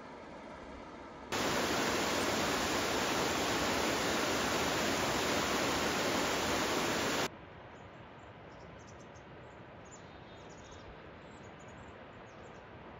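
Loud steady hiss of even noise that starts abruptly about a second in and cuts off suddenly about six seconds later. Before it there is a low hum, and after it a quieter hiss with faint high chirps.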